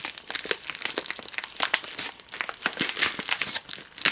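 Silver foil bubble-lined anti-static bag crinkling as it is handled, a dense run of irregular crackles.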